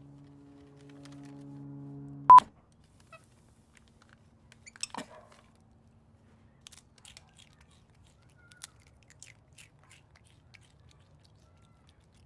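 A steady low hum cut off about two seconds in by one short, sharp, high electronic beep. After it come faint scattered crunches and clicks of a capuchin monkey chewing a tortilla chip.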